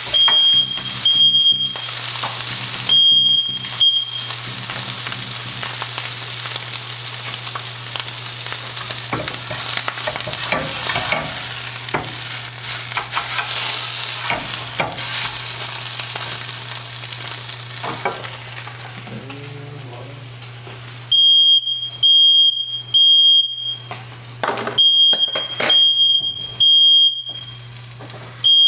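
Smoke alarm beeping in high, even pulses about once a second, at the start and again from about two-thirds of the way through. In between, eggs sizzle in a frying pan while a spatula stirs and scrapes them, over a steady low hum.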